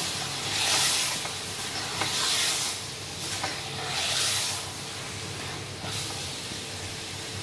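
Chicken pieces sizzling in hot oil and spice masala in a steel pot as they are stirred and turned with a metal spatula. The sizzle swells several times over the first few seconds, then settles into a steadier hiss.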